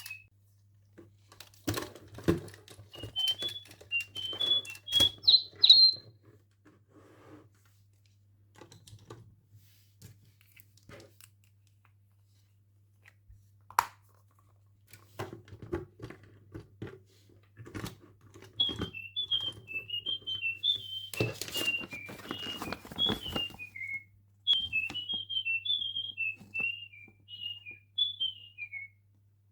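Electronic toy bird tweeting from its small speaker in runs of quick high chirps, among clicks and rustles of the toy and its packaging being handled, over a steady low hum.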